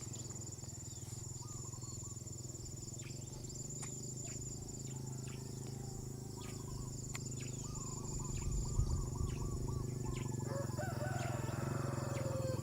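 Farmyard ambience: a steady high insect trill, with birds chirping again and again over a low steady hum. Near the end comes a longer, falling animal call.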